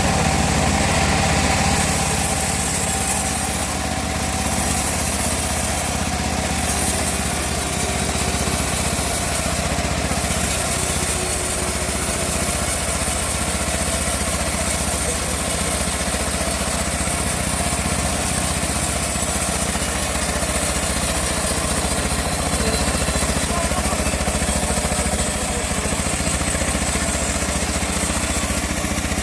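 A homemade bandsaw mill running steadily, its engine holding one constant speed.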